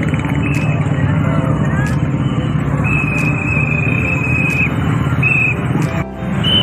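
Street parade din of voices and vehicle engines. Over it, a high steady tone sounds in short blasts and in one long blast of about two seconds.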